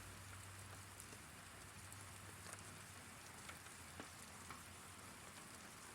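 Rain falling steadily: a faint, even hiss with a few soft ticks of drops.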